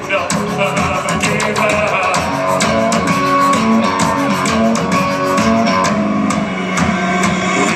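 A live band playing rock music, with a steady beat of drum hits under sustained notes, heard from far back in the audience of a large hall.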